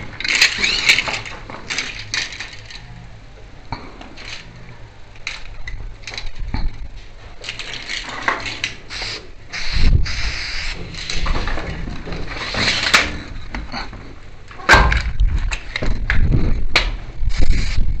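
Aerosol spray paint can hissing in a few short bursts, used to mark a concrete block wall, with scattered clicks. Heavy low rumbling knocks are the loudest sound near the end.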